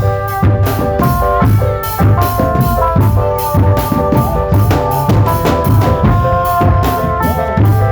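Marching drum band playing: bass and snare drums keep a steady beat under a melody of held notes.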